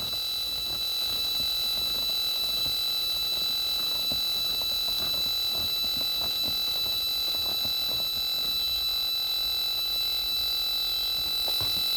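A homebrew Si5351 receiver's audio: a steady hiss with a constant high-pitched whine and several fainter steady tones, with faint scattered ticks. It is the rotary encoder's noise swamping reception higher up the band.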